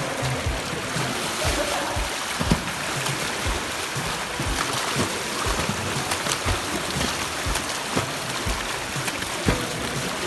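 Water sloshing and splashing in open water, with irregular dull low knocks about once or twice a second.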